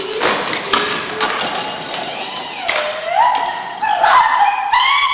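A few knocks and thumps on a wooden stage and table, then a long wavering tone that glides up in pitch about halfway through, with more pitched tones coming in near the end as music begins.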